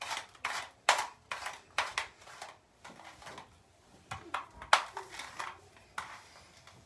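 Hairbrush pulled through long hair in quick repeated strokes, a swish about two or three times a second, with a lull in the middle before the strokes pick up again.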